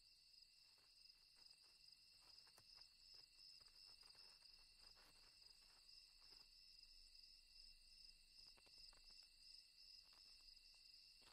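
Faint, steady, high-pitched chirring of crickets, with a few soft ticks scattered through it.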